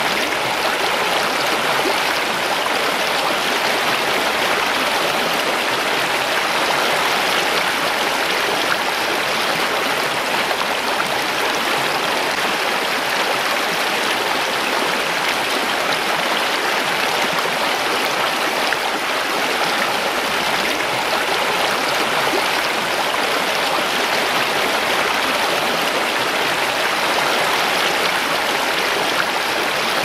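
Shallow mountain stream rushing and splashing over rocks and stones: a steady, even water hiss that doesn't change.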